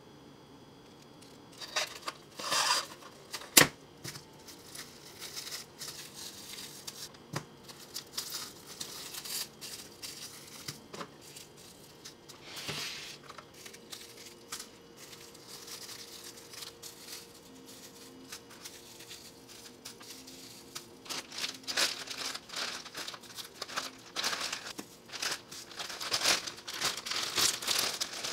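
Plastic cling wrap crinkling and tearing in irregular bursts as avocado halves are wrapped by hand, with one sharp click about three and a half seconds in. The crinkling grows denser and louder in the last several seconds as the wrapped halves go into a plastic zipper bag.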